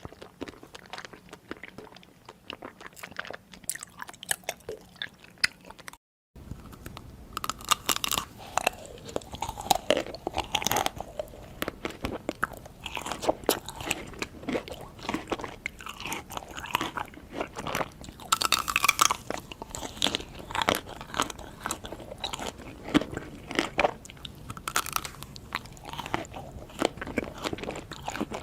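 Close-up eating sounds: a person biting and chewing crunchy food, with many sharp crunches. About six seconds in the sound cuts out for a moment and comes back louder and denser.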